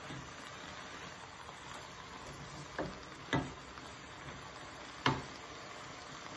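Diced vegetables and meat frying in a pot with a steady low sizzle while being stirred with a spoon. The spoon knocks against the pot three times, a pair close together about three seconds in and a sharper one about five seconds in.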